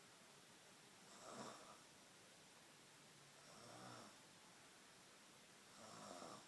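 Faint snoring, one soft snore about every two and a half seconds.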